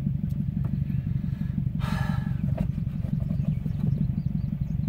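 Car engine running with a steady low rumble, heard from inside the cabin, with a brief hiss about two seconds in.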